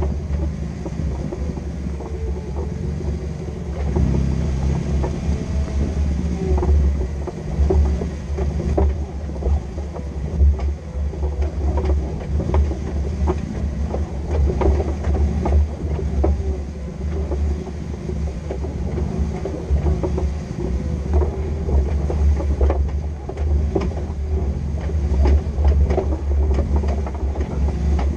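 Off-road vehicle driving over rough ground: a steady low engine and drivetrain rumble with frequent short knocks and rattles.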